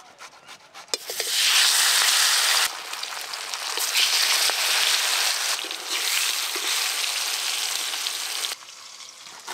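Hot oil sizzling loudly as turmeric-and-salt-coated black pomfret steaks are slid one by one into an aluminium wok. The sizzle flares up about a second in and again around four seconds as more pieces go in, then drops off sharply near the end.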